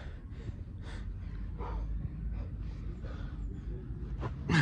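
A man breathing hard and fast while exercising in a 15 kg weight vest: a run of heavy, breathy gasps and exhalations about every half second to second, with a louder, harder exhale near the end.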